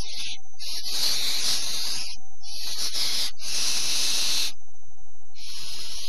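Barn owls giving harsh, rasping hiss calls: four long calls, each about half a second to a second, the first starting about a second in and the last near the end.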